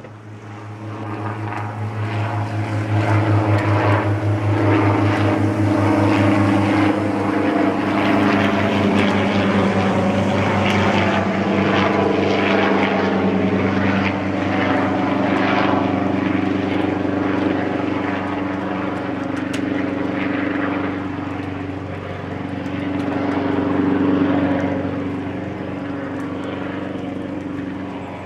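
Small light helicopter flying low overhead: a steady engine drone with a rapid rotor chop. It grows loud over the first few seconds, eases a little past the middle, swells once more a few seconds before the end, then begins to fade.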